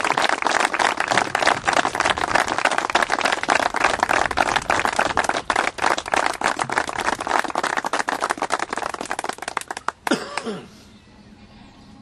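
A small group of people clapping steadily by hand, the claps packed close together, for about ten seconds; then the clapping stops abruptly, leaving only faint background sound.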